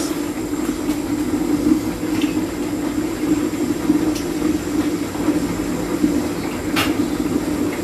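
Kitchen tap running steadily into a sink during dishwashing, a continuous rushing noise, with dishes clinking briefly three times.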